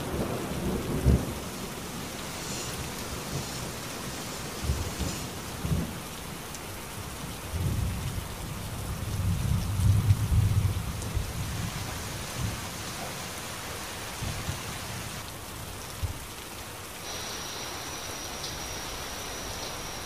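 Steady rain falling, with low rumbles of thunder, the longest and loudest about halfway through.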